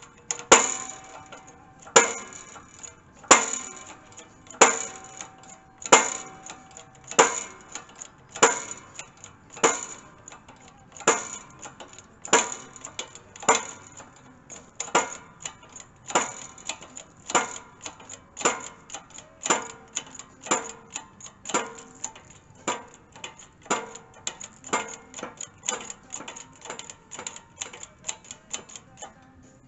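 Hydraulic bottle jack on a shop press being pumped by hand, a sharp metallic click with a short ring at each stroke while the press pushes a worn bushing out. The clicks come about one a second at first and quicken to about two a second toward the end.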